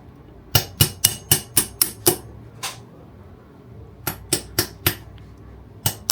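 Hammer tapping a pin punch to drive the bolt catch pin out of an AR-15 lower receiver: sharp metallic strikes about four a second, in short runs with pauses between.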